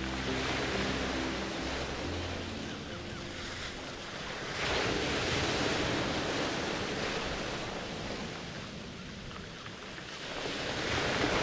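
A rushing noise, like surf, that swells and ebbs twice. A few low, sustained music notes die away in the first couple of seconds.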